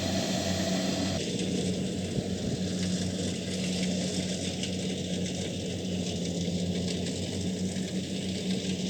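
Kubota DC70Plus combine harvester running steadily: its diesel engine hums under the noise of the cutting and threshing machinery. The sound changes abruptly about a second in, then stays steady.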